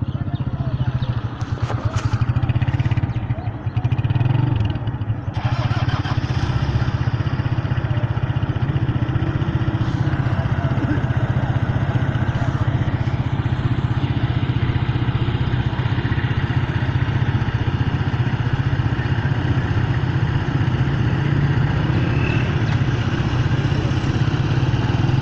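A small engine, like a motorcycle's, running steadily throughout, with some unsteady noise in the first few seconds.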